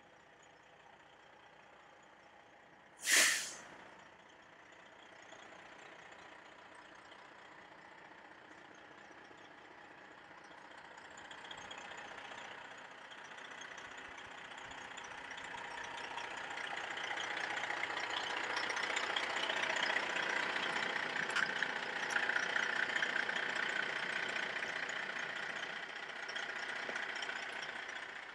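Freightliner M916A3 6x6 truck's diesel engine running quietly, with one loud, sharp burst about three seconds in. From about ten seconds in the engine grows steadily louder and holds near its peak, easing slightly near the end.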